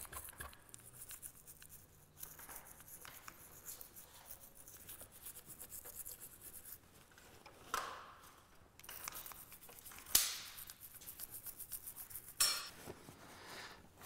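Toothbrush scrubbing the pistons of a motorcycle brake caliper: faint, quick rubbing strokes, with three louder, sharper sounds in the second half.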